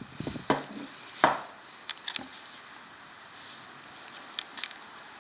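Several scattered sharp clicks and taps over a faint steady hiss, the strongest about a second in.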